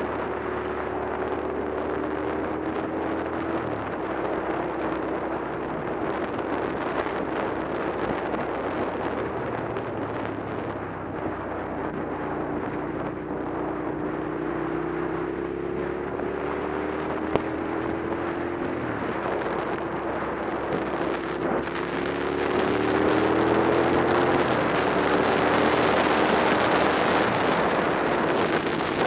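Suzuki SV650's V-twin engine running on the road, with wind rushing over the microphone. The engine pitch climbs steadily and drops abruptly a couple of times, and the wind noise grows louder over the last several seconds.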